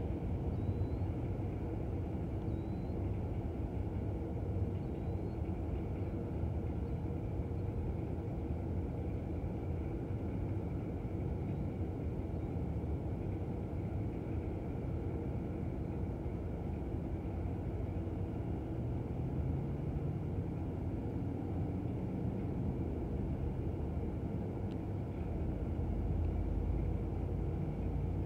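Steady whir of a hovering camera drone's propellers, several constant pitches held over a low rumble.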